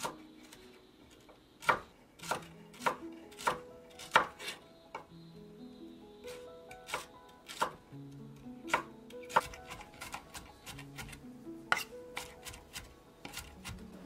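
Kitchen knife chopping celery on a wooden cutting board: sharp, irregular knocks, roughly one or two a second.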